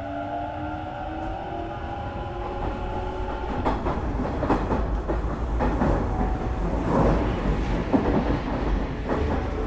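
Hanshin 1000 series electric train gathering speed. The traction motor whine rises in pitch in several tones at once, then from about three and a half seconds in it is drowned by louder wheel-on-rail running noise with irregular clicks from the rail joints.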